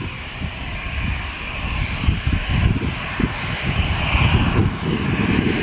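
Twin-engine jet airliner's engines running as it rolls along the runway: a steady whine over an uneven low rumble.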